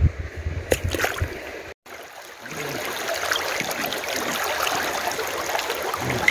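Shallow stream water running and trickling steadily around a stone. Before a brief cut to silence near two seconds in, there is a low rumble with a few light knocks.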